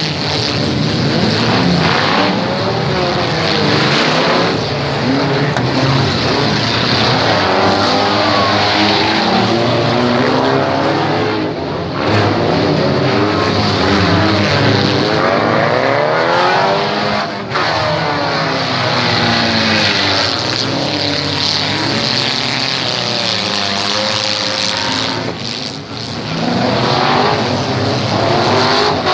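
Several demolition-derby cars' engines revving hard at once, their pitches rising and falling as the cars accelerate and slow.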